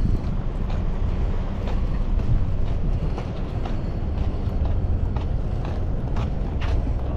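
Steady low rumble, with a few short crackles of a plastic water bottle handled right at the microphone, most of them near the end.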